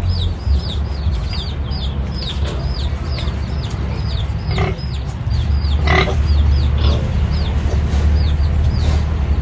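Chicks peeping over and over, a few short falling notes a second, with two brief piglet calls about four and a half and six seconds in. A steady low rumble runs underneath.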